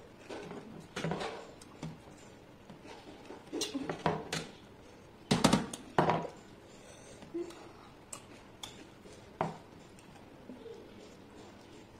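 Someone eating rice and fish curry by hand from a stainless steel plate: fingers mixing and scraping food against the metal, with chewing and mouth sounds. Scattered small clicks and knocks, the loudest two about five and a half and six seconds in.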